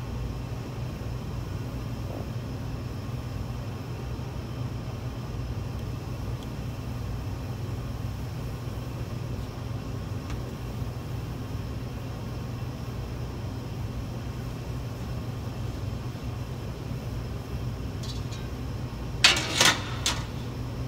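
Steady low machine hum of commercial kitchen equipment. Near the end come three loud, sharp clattering knocks in quick succession.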